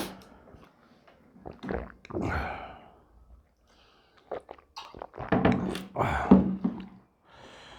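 A few dull thunks and short knocks, spread over several seconds with quiet gaps, the loudest about six seconds in.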